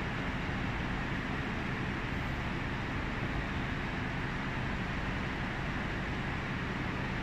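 Steady mechanical drone with an even hiss from a telescopic mast's lifting drive running during an extension test; it holds level with no change.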